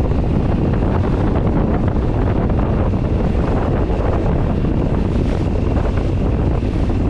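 Strong wind rushing over the microphone aboard a small boat in rough, choppy water: a loud, steady rush with no let-up.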